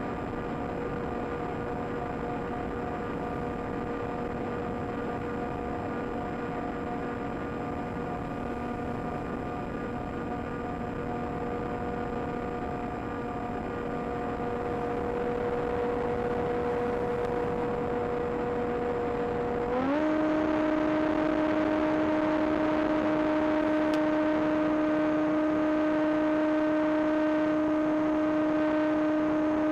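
The AXN Floater Jet's electric pusher motor and propeller give a steady whine in flight. About two-thirds of the way in, the pitch rises quickly and the sound gets louder as the motor speeds up, then holds at the higher speed.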